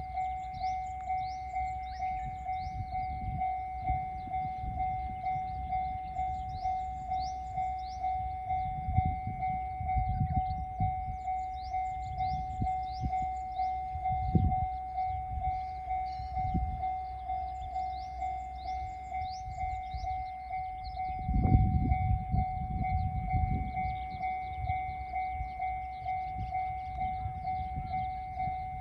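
Japanese railway level-crossing alarm sounding, a steady electronic bell tone pulsing over and over, with high chirps above it. Low rumbles swell now and then, the loudest about two-thirds of the way through.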